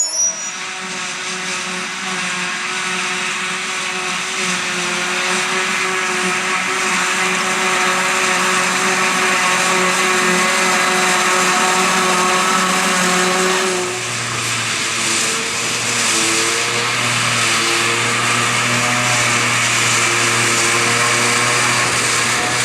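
Heavy farm machinery chopping grass for silage: forage harvester and tractor engines running steadily under load, with a whirring haze above the engine hum. About 14 seconds in the sound changes abruptly to a lower, steady engine tone.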